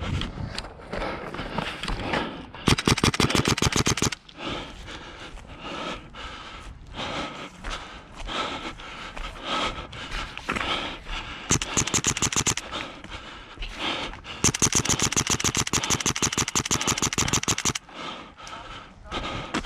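Airsoft gun firing three full-auto bursts, each a rapid, even rattle of shots, the last and longest lasting about three seconds. Between the bursts there is scraping and rustling of movement.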